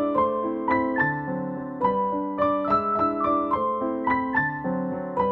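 Background music: a piano playing a melody over chords, with new notes struck about twice a second.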